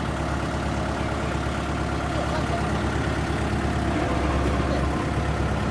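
Diesel engine idling steadily, a constant low hum.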